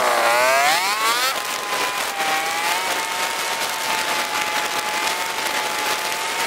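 Harley-Davidson V-twin motorcycle engine accelerating, rising in pitch for about a second, then holding a steady pitch as it cruises.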